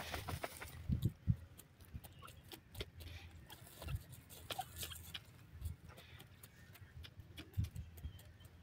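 Grey francolin pecking and digging in dry, crumbly soil: irregular taps and scratchy rustles, with a few low thumps.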